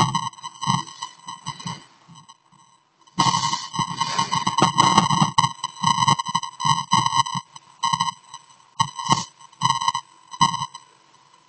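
Baby snoring in rough, irregular breaths that pause briefly, with a steady high-pitched whine alongside.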